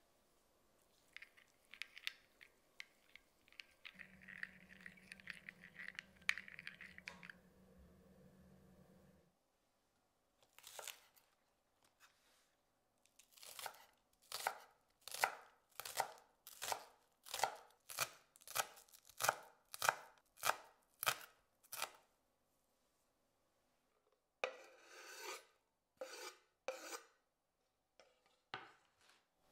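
Chef's knife chopping green onions on a bamboo cutting board: a steady run of sharp chops, about two a second, lasting some eight seconds. Near the end, the knife scrapes the chopped onions off the board into a glass bowl.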